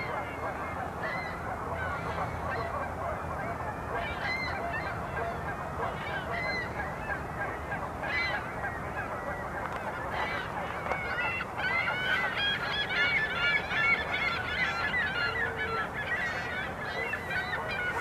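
A flock of geese honking, many calls overlapping, busiest about two-thirds of the way through.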